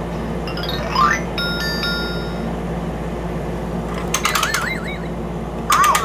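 Electronic chime and sound effects from a Crazy Legs Learning Bug toy's speaker: a short cluster of bright ringing tones, then wavering, warbling tones about four seconds in and again near the end.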